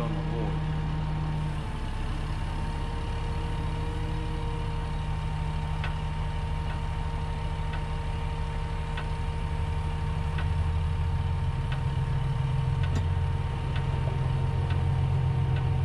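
Electric hydraulic pump motor of a car lift running steadily as the car is raised. From about six seconds in, light clicks come about every three-quarters of a second as the lift's safety latches ratchet past. The hum grows a little louder after about ten seconds.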